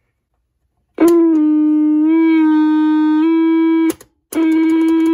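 Electra TC-505 reel-to-reel recorder's amplifier feeding back: a loud steady howling tone that wavers slightly in pitch, stops briefly after about three seconds, then sounds again for about a second and a half.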